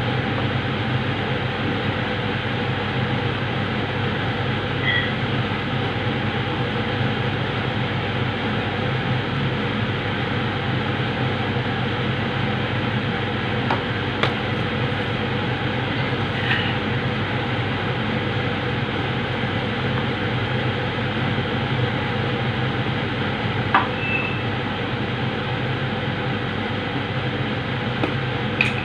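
Steady fan noise with a few faint clicks.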